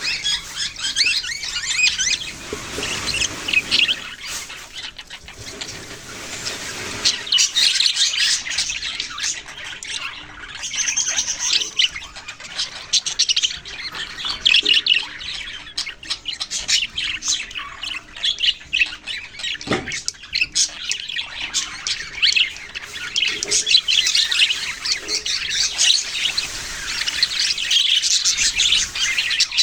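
Budgerigars chirping and chattering, many quick high calls overlapping without a break, with a single sharp click about two-thirds of the way through.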